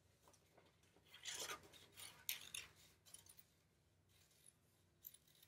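Scissors cutting construction paper: a few faint snips and paper rustles between about one and three seconds in, then a couple of small clicks near the end.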